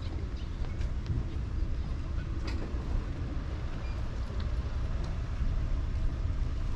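Steady low outdoor rumble, with a few faint short clicks over it.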